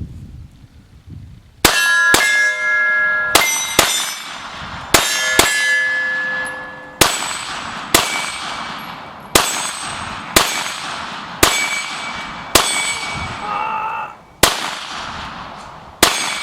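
About fourteen 9mm Glock 19 pistol shots, each with AR500 steel targets clanging and ringing as they are hit. The first shots come in quick pairs, then the pace settles to roughly one a second.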